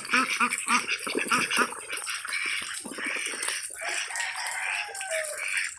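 Ducks quacking in quick repeated calls, most busily in the first two seconds, over the steady hiss of heavy rain.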